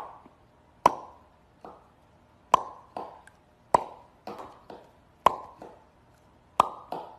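A series of about a dozen short, sharp plops, each with a brief ringing tone that dies away quickly, coming every half second to second and often in close pairs.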